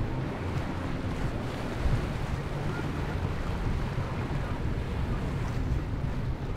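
Jet ski engines running at a distance under wind buffeting the microphone and the wash of waves, a steady mix with no single event standing out.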